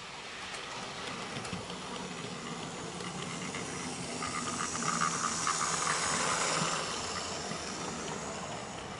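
OO gauge model steam locomotive and its coaches running past close by, a steady hiss and rattle of wheels on track that grows louder as the train nears, peaks about five to six seconds in as it passes, then eases off.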